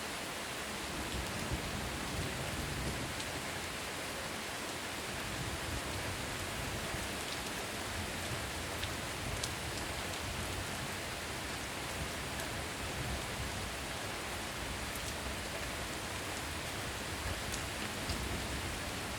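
Heavy rain falling steadily, a dense even hiss with scattered individual drop hits and a low rumble underneath.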